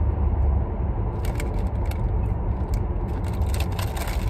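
Low road rumble inside a moving car, with a run of light clicks and rattles starting about a second in.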